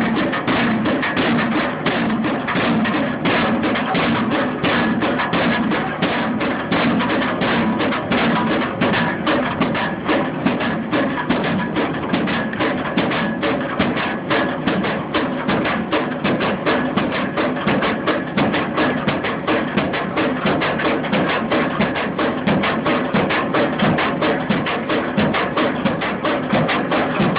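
Pile driver hammering a pile: a steady, even rhythm of repeated hard blows that runs on without a break.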